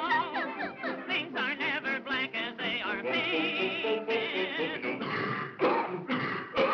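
Early sound-cartoon soundtrack: a warbling, yodel-like singing voice with heavy vibrato over a small band playing the tune, with a couple of sharp loud bursts near the end.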